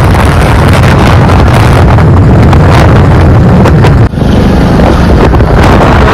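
Loud wind buffeting on the microphone over the low rumble of a moving vehicle at road speed. The sound drops out briefly about four seconds in, then resumes.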